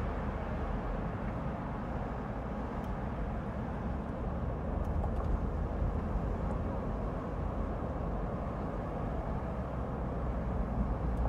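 Car driving through city streets: steady road and traffic noise with a heavy low rumble, picked up by a camera mounted outside on the car's roof.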